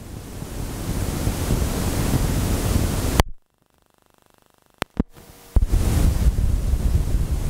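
Steady hiss and low rumble from a Sony Walkman TPS-L2 playing past the end of the music on a cassette. The noise cuts out about three seconds in, two sharp clicks follow about a second and a half later, and the hiss comes back soon after.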